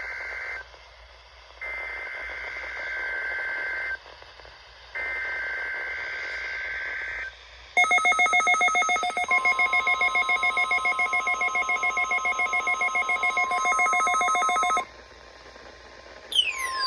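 NOAA Weather Radio Required Weekly Test alert sequence. It opens with three bursts of the two-tone SAME digital header, each about two seconds long with short gaps between. Then comes a rapidly pulsing electronic alarm beep, joined about a second and a half later by the steady 1050 Hz weather radio warning tone; both stop together, and a falling sweep begins near the end.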